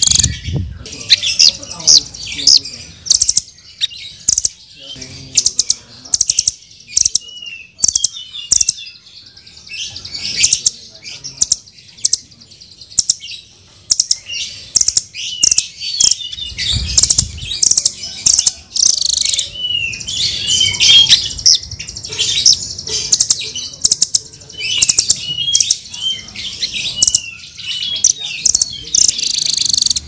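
Blue nuthatch calling: many sharp, high chips and short curved notes, given in quick, irregular bursts.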